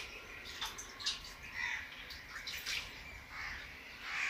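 Hands kneading dough in a wide bowl: soft, irregular wet squishing and slapping, with a few light knocks.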